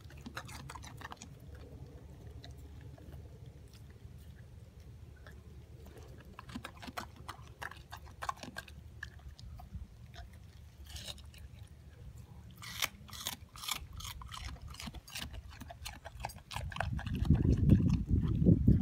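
Siberian husky chewing and crunching watermelon rind, crisp bites coming in bursts, quickest and loudest a little past the middle. A louder low rumble comes in near the end.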